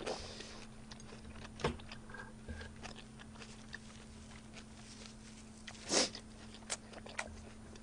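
A person eating close to a microphone: soft chewing with scattered small mouth clicks, and a louder bite about six seconds in, over a faint steady hum.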